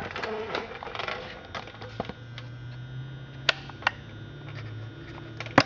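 Handling clicks and knocks on a Stihl 021 chainsaw, a handful of scattered sharp ticks, the loudest near the end. A faint low hum runs through the middle.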